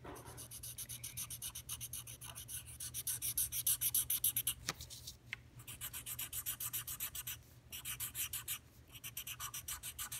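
Felt-tip marker scribbling back and forth on paper in quick, even strokes, about five a second, with a few short pauses.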